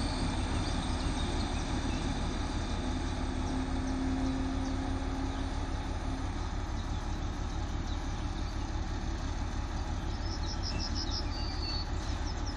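Diesel railcars running at a station: a steady distant engine drone that stops about six seconds in, under a heavy low wind rumble on the microphone. A bird gives a quick series of high chirps near the end.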